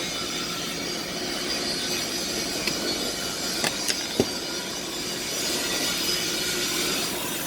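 Stick welding arc on a 1/8-inch 7018 electrode, a steady crackling hiss with a few sharp pops around the middle as a pass is laid.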